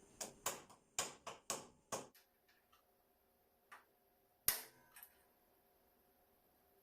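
Sharp metal knocks of a hammer tapping a steering-head bearing race into a motorcycle's steering column: a quick run of about six taps in two seconds, then a louder single knock a little past halfway and a last light one.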